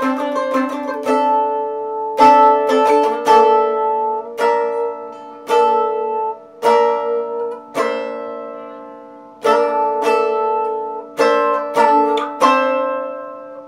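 Solo acoustic A-style mandolin: a quick run of picked notes at first, then chords struck about once a second and left to ring, the last one fading out near the end.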